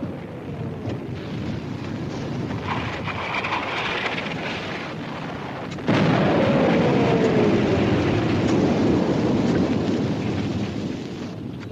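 Artillery shelling on a war-film soundtrack: a steady rumbling roar, then a sudden loud shell burst about six seconds in. The burst carries a falling tone and dies away slowly in a long rumble.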